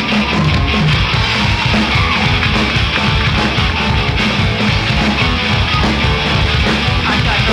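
Rock band playing an instrumental passage without vocals: bass and drums driving a steady beat under a dense, loud band sound.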